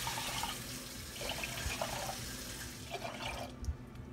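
Water pouring from a glass measuring cup into a speckled enamel pot of dry rice, a steady splashing pour of about three and a half seconds that tails off near the end.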